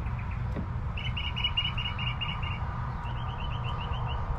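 A small bird calling in two quick runs of short, high chirps, the first about a second in and the second near the end, over a steady low background rumble.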